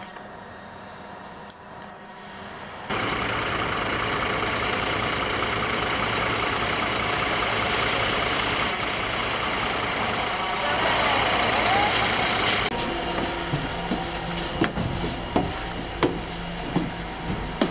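Scania UNVI Urbis 2.5 DD double-decker bus, which runs on compressed natural gas, driving up with loud steady engine and road noise that starts suddenly about three seconds in. Later, on board, the engine hum continues under a run of knocks about every 0.7 seconds: footsteps climbing the stairs to the upper deck.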